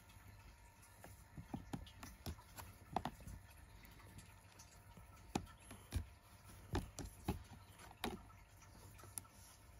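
Irregular soft knocks and taps as a cat plays with a hand inside a plastic laundry basket, its body and paws bumping the basket; the taps come in small clusters, a few sharper ones a little past the middle.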